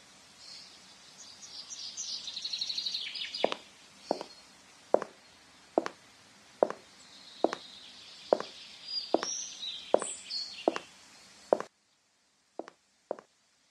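Footsteps of shoes on a tiled floor, one step about every 0.8 seconds, with birds chirping and a fast trill over the first few seconds. Near the end the outdoor background and birds cut off suddenly, and a few more steps follow on a quiet floor.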